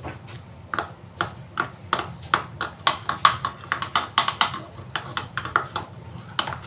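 Kitchenware clinking: a utensil tapping and knocking against cups and dishes in quick, irregular clicks, a few a second.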